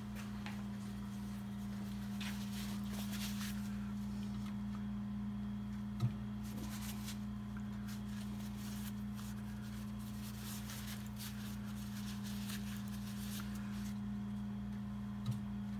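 A steady low hum, with stretches of soft rubbing as a rag wipes stray paint from the model hull, and a light tap about six seconds in and another near the end.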